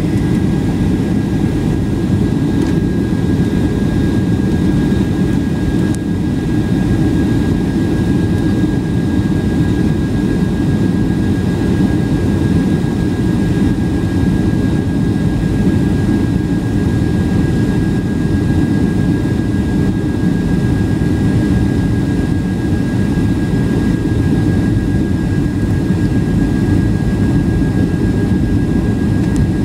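Steady roar of a jet airliner's engines and rushing air heard inside the passenger cabin as the plane descends on final approach, with a thin steady high whine above it.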